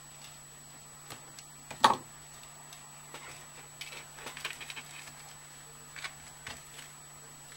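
Sparse small clicks and taps of hand bead-embroidery work: needle, beads and thread handled over an embroidery hoop. One louder knock comes about two seconds in, and a quick run of light ticks follows around four to five seconds.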